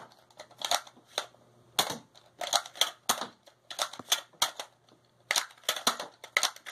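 Nerf Elite Strongarm blaster being worked by hand: a run of sharp plastic clacks from its priming slide and trigger, in irregular groups of two to four, the repaired blaster cycling again.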